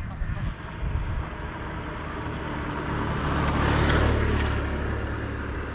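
A motor vehicle passing close by on the road: a low engine hum with tyre and road noise that swells to its loudest about four seconds in and then fades.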